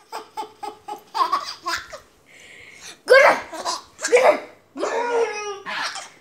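Baby laughing: a quick run of short chuckles, then several louder bursts of laughter.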